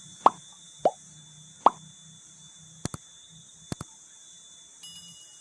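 Three small water plops, each a quick rising 'bloop', in the first two seconds, then two pairs of sharp clicks, over a steady high-pitched hum.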